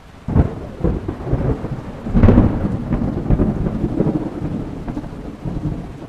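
Thunder rumbling over steady rain, loudest about two seconds in and slowly dying away.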